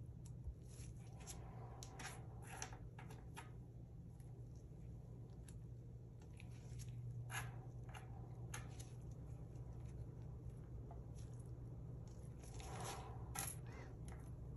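Faint, scattered clicks and brief rustles of craft supplies being handled, over a steady low hum.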